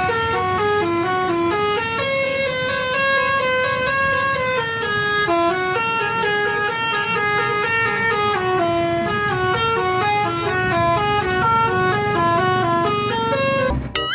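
Telolet bus horn playing a tune: a multi-note air horn stepping quickly up and down through a string of short notes, without pause, before breaking off near the end.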